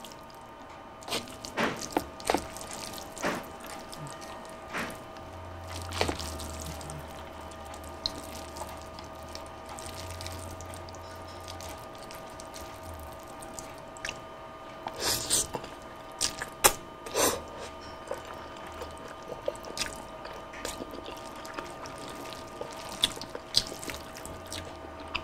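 A fork mixing saucy palabok noodles on a plate: wet, sticky squelches and scattered clicks of the fork against the plate, over a faint steady hum.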